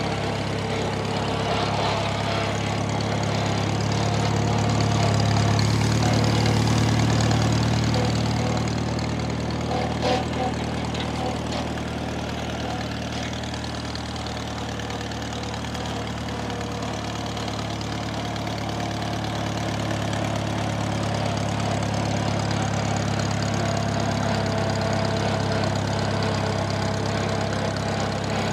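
1950 Farmall Cub's small four-cylinder flathead engine idling steadily, swelling a little louder for a few seconds early in the run.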